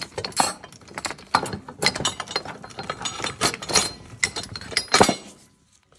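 A steel three-jaw gear puller and the parts of a dismantled CVT driven clutch clink and knock together as they are handled. The knocks and clinks come irregularly, some with a short metallic ring, and the loudest is about five seconds in.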